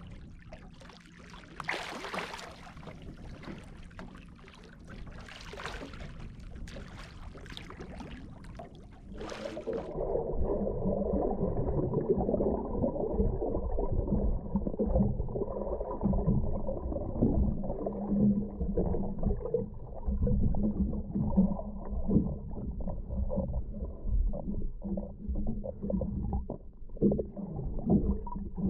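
Water splashing around a snorkeler swimming at the surface, then, about nine seconds in, a sudden change to the muffled low rumble and gurgling of the camera's microphone underwater as he swims down.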